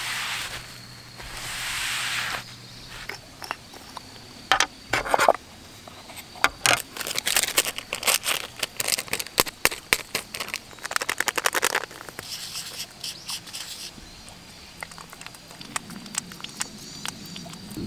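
A cloth rubbing across an aluminium table top, then a small paper packet crinkling in a long run of sharp crackles.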